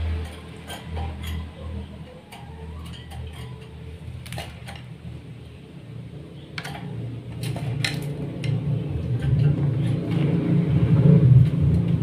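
A white-breasted waterhen's bill tapping sharply and irregularly on a wooden board as it pecks at a caterpillar and worms. Under it runs a low steady rumble that swells toward the end and becomes the loudest sound.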